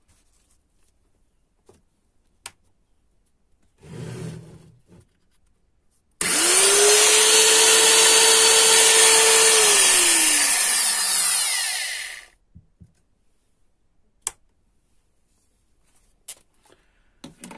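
Old 500-watt Black & Decker router's motor switched on for a test run: it whines up to full speed almost at once and runs steadily for about three seconds. It is then switched off and winds down, its pitch falling until it stops. A brief quieter noise comes before the start, and a few light knocks after.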